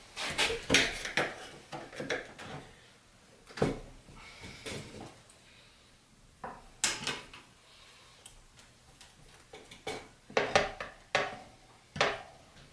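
Flathead screwdrivers levering a moped tire's bead over its metal wheel rim: irregular metal clinks, knocks and scrapes, coming in clusters with quieter scraping between.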